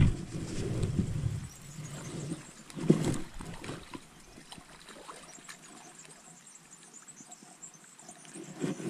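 A small hooked fish splashing at the water's surface as it is reeled in on a rod, with bumps from rod and landing-net handling; one louder knock about three seconds in, after which it goes quieter to faint splashing and ticking.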